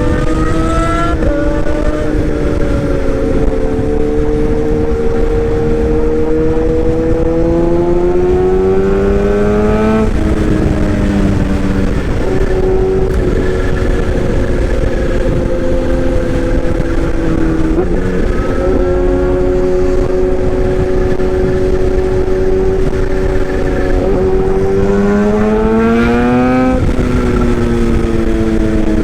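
Toy excavator's motor running continuously, its whine rising and falling slowly in pitch every few seconds as it works.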